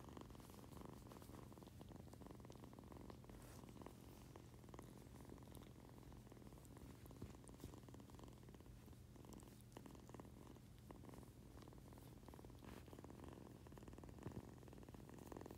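Siberian-mix kitten purring steadily and faintly, with a few light clicks and rustles of fur being handled.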